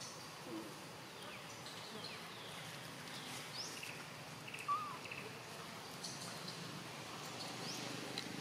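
Forest ambience with scattered short bird calls: a few quick rising chirps and one brief, louder call about halfway through.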